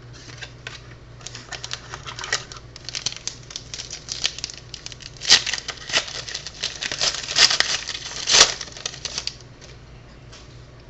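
Hockey trading cards being handled and flipped through by hand: a quick, uneven run of small clicks and rustles with a few sharper snaps, over a steady low hum.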